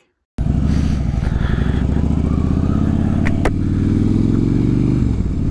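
Harley-Davidson Dyna Switchback's V-twin engine running, starting abruptly a moment in. The pitch holds steady, then dips briefly near the end. Two sharp clicks come about three seconds in.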